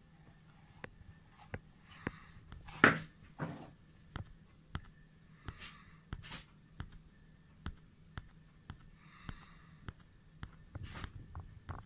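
Hands handling and turning a telescope zoom eyepiece: small scattered clicks and rubbing against the rubber grip, with a louder handling noise about three seconds in and another just after.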